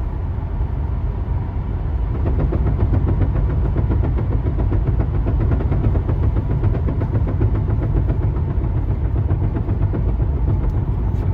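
A vehicle's steady low rumble, getting a little louder about two seconds in.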